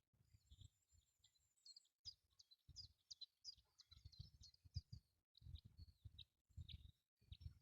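Faint bird chirping: many short, quick high notes, with low rumbling thumps underneath.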